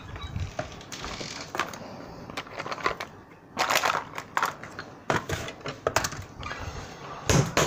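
Irregular clicks, scrapes and rustles of someone handling things and moving about, with a louder cluster of scratchy noises a few seconds in and another near the end.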